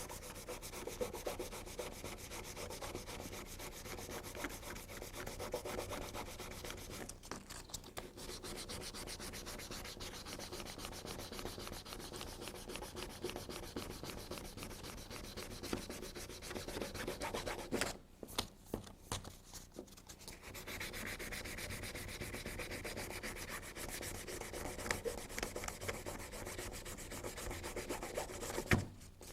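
Sandpaper, about 400-grit, rubbed back and forth by hand over a plastic car light lens to sand out a scratch. It is a steady, fairly quiet rasping with short breaks about seven seconds in, for a couple of seconds around eighteen seconds, and just before the end.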